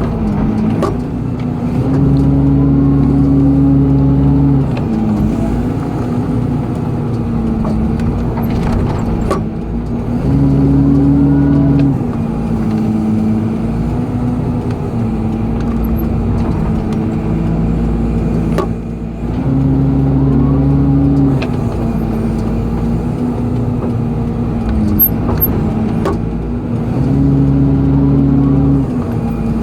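Excavator's diesel engine running steadily, surging louder under hydraulic load four times, about every eight seconds, as the bucket digs and dumps soil. A few sharp knocks come between the surges.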